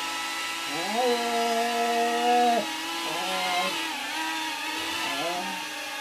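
Small 2.5-inch FPV drone's brushless motors spinning up on the bench as it is armed for a test after a repair. The pitch rises about a second in and holds steady for about a second and a half, then drops and comes back in a few shorter revs.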